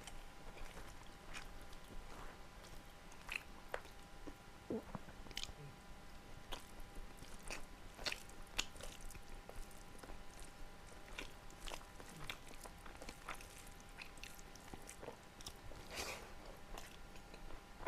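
Close-miked mouth sounds of a person eating: chewing and biting with many small, irregular wet clicks and smacks.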